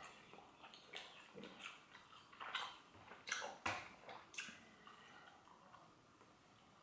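A mouth chewing a large wad of chewing gum: irregular faint smacks and clicks, loudest around the middle, dying away over the last couple of seconds.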